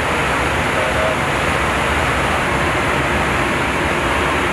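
Steady cabin noise of an Airbus A320 flight deck in flight: an even rush of airflow and engine noise that holds the same level throughout.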